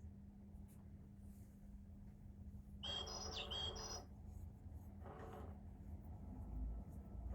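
Bird calls: a short run of high, gliding chirps about three seconds in, a fainter call about two seconds later and another starting near the end, over a steady low hum.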